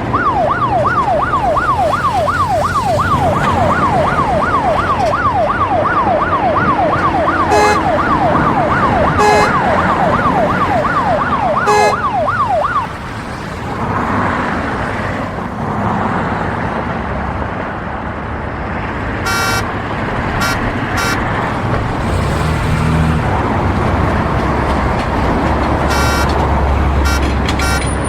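City street traffic with a fast yelping emergency-vehicle siren, about three quick up-and-down sweeps a second, for roughly the first thirteen seconds. After the siren stops, traffic noise continues with several short car-horn honks, and a heavy vehicle's low engine rumble rises near the end.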